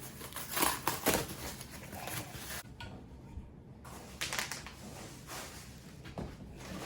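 Handling sounds from unpacking office-chair parts: plastic packaging rustling and crinkling, with a few sharp knocks in the first second or so and a short lull about three seconds in.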